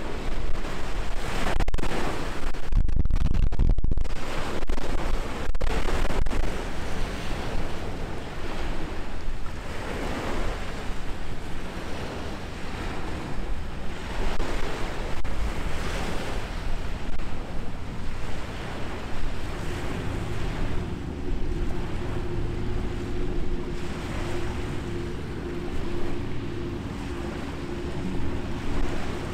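Wind buffeting the microphone and waves washing in repeated surges. About two-thirds of the way through, the steady hum of a boat engine comes in and holds.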